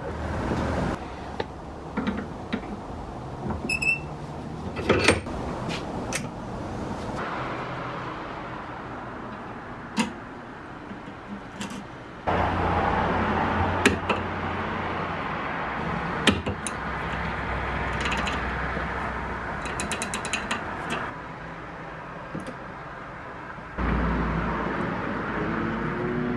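Small hot-blued steel trap parts being reassembled with needle-nose pliers in a bench vise: scattered sharp metallic clicks and clinks as pieces are handled and fitted. Beneath them is a steady background noise that changes level abruptly several times.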